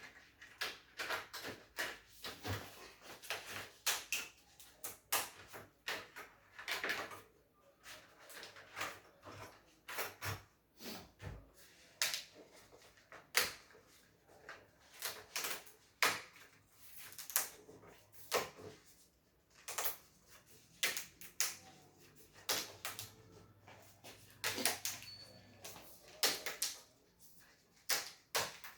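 Irregular clicks, taps and knocks of LCD TV panel parts being handled and fitted by hand, a few sharp knocks every second or so.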